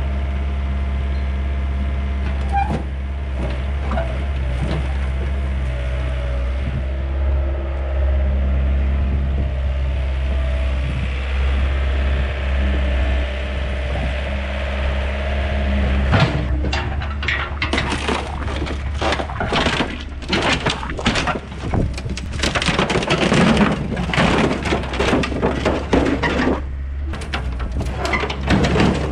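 A Yanmar mini excavator's diesel engine running steadily. From about halfway through, repeated crunching, cracking and tearing of sheet metal as the excavator's bucket and thumb rip into a rusted-out 1999 Dodge Ram pickup.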